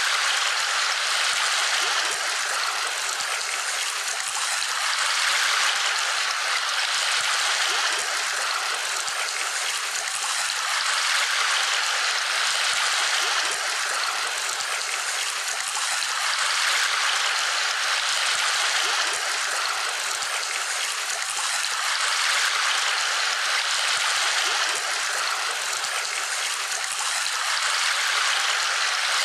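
Steady rush of running water, swelling and easing gently every few seconds.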